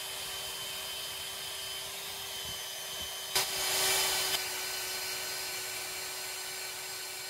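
Electric drill running steadily with a constant whine as a 3/16 bit cuts down through a broken-off bolt in a flathead engine's cylinder head. About three and a half seconds in, the cutting gets louder and harsher for about a second.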